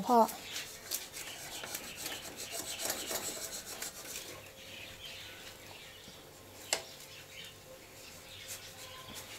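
Wooden spatula scraping and prying along the edge of a Teflon nonstick pan, loosening the rim of a thin omelette from the pan. The scraping is busiest in the first few seconds and grows fainter, and there is a single sharp click about two-thirds of the way in.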